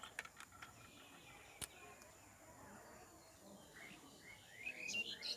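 Quiet background with a few faint clicks, then several faint, short, rising bird chirps in the last second.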